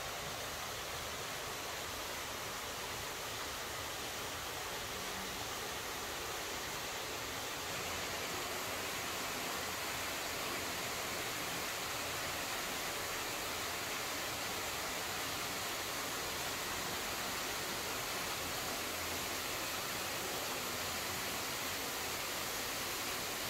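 A steady, even hiss with no separate sounds in it, getting a little louder about eight seconds in.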